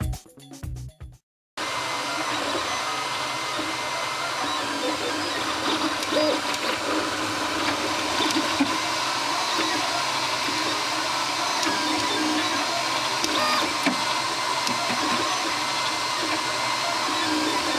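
Brief music cuts off, then a FlashForge Dreamer 3D printer runs steadily: stepper-motor whine and fan noise with a few faint light knocks.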